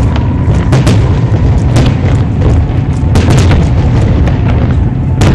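Aerial fireworks shells bursting overhead: a continuous deep rumble of booms with many sharp cracks and pops scattered through it.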